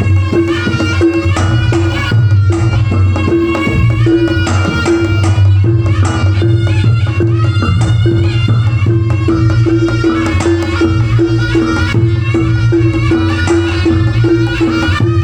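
Javanese gamelan ensemble playing a langgam, kendang hand drums driving the rhythm under a steadily pulsing repeated note and a melody line above.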